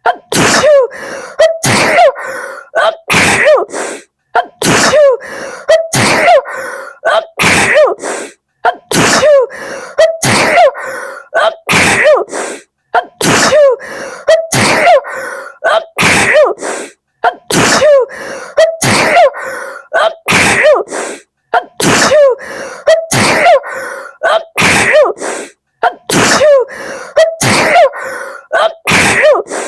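A woman's sneezing fit: several sharp sneezes in quick succession with short, pitched gasping breaths between them. The same few-second run of sneezes repeats over and over, about every four seconds, with a brief break between repeats.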